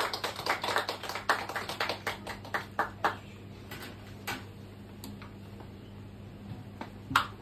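Small audience applauding after a song: dense clapping for about three seconds that thins to a few scattered claps, with one sharper clap or knock near the end. A low steady hum sits underneath.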